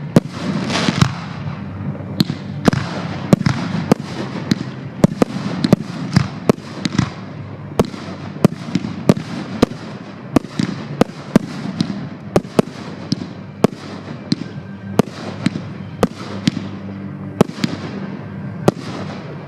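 Fireworks display: aerial shells bursting in a rapid string of sharp bangs, about two a second, over a continuous crackle.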